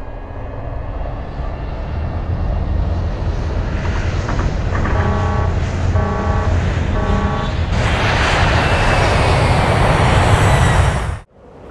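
Animation sound effects of a jet spy plane launching from a catapult: a building aircraft engine rumble with a pulsing tone about once a second in the middle, then a loud jet roar from about eight seconds in as the plane takes off, cutting off suddenly near the end.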